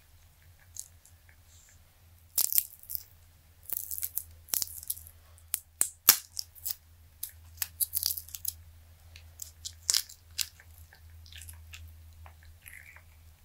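A flexible silicone dice mold is being peeled and flexed off cured green resin dice. It gives a run of sharp crackles and sticky snaps as the silicone releases, thickest from about two seconds in until about ten seconds. A low, steady hum runs underneath.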